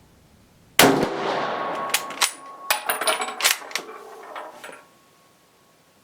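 A single shot from a Brazilian M1908/34 Mauser bolt-action rifle in .30-06, about a second in, with a fading echo. A quick run of sharp metallic clacks follows as the bolt is worked.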